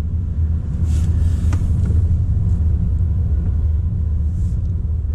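Steady low rumble of a car driving on a wet road, heard from inside the cabin: engine and tyre noise. A faint click about one and a half seconds in.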